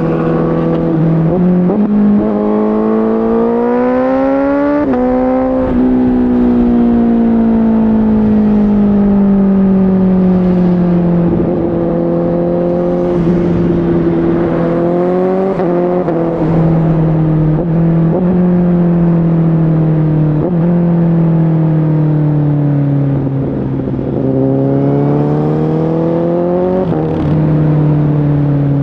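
Honda CBR1000RR Fireblade inline-four with a Shark Factory aftermarket exhaust, revving up through the first few seconds and then winding down slowly as the bike slows. A few brief rises in revs follow, and the engine climbs again near the end before dropping off, with wind noise running underneath.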